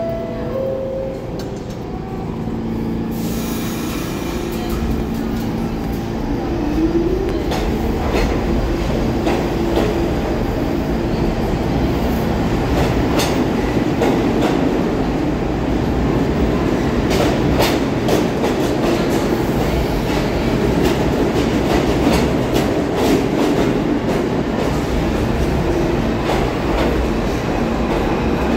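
New York City subway train's two-note door chime at the start, then the train pulls out: a motor tone rises in pitch over a few seconds and the rumble grows louder into a steady run, with wheels clicking over rail joints.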